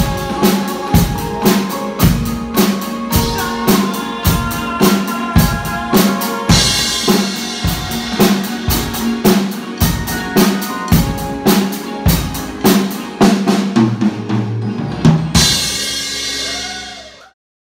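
DW drum kit played in a steady beat, bass drum and snare strokes about twice a second. Near the end a crash cymbal is struck and rings out, then the sound cuts off.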